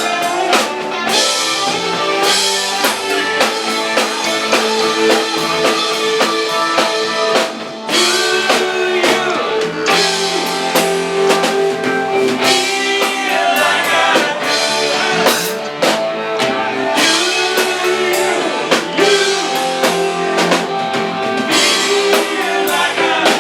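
Live rock band playing: drum kit, electric guitar and bass, instrumental with no vocals.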